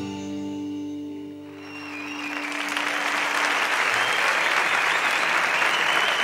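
A concert audience applauding: the ensemble's last notes ring out and fade, and clapping swells in about a second and a half in, then holds steady.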